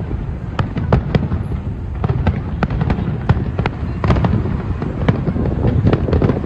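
Fireworks display going off: many sharp cracks and bangs in quick succession over a continuous low rumble of bursts.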